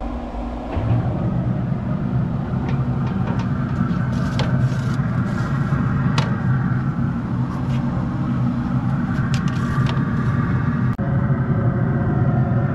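Pit Boss pellet grill running hot at about 430°F, its combustion fan and fire giving a steady hum and rumble, with a few sharp metal clicks as pans go onto the grates.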